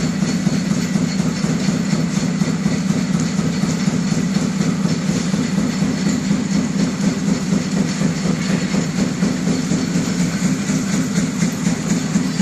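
Production machinery running steadily, a constant low hum with a fast, even clatter.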